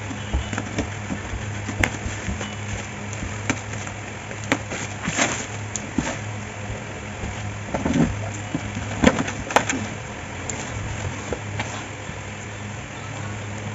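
Plastic parcel wrapping and packing tape crinkling and tearing as a package is opened by hand, with louder rips about five seconds in and again around eight to ten seconds in, over a steady low hum.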